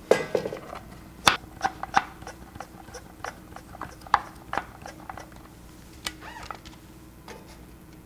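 A plastic soda bottle being handled: irregular crinkles, taps and clicks of the plastic and its cap, with a louder knock a little over a second in, as the bottle is fitted for pumping air into it and then set back down on the balance pan.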